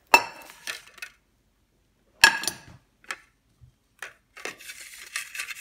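Kitchenware clattering on a granite countertop while fried cheese is moved from the pan onto a plate: two sharp knocks with a short ring, a few lighter taps, then scraping and rustling near the end.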